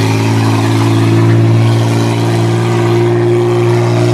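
A truck engine running under steady throttle at nearly constant revs as the vehicle drives over dirt.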